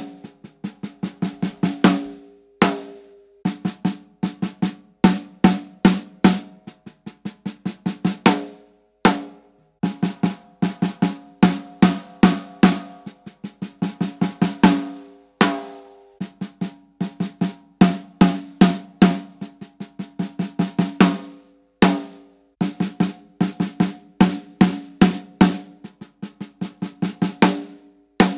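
Snare drum played with wooden sticks: short phrases of quick strokes and accents, each phrase ending in a ringing hit, with a brief pause about every six seconds. The same phrase is played on a series of coated Evans snare heads in turn, among them the pre-dampened Genera HD, the Onyx and the Hydraulic.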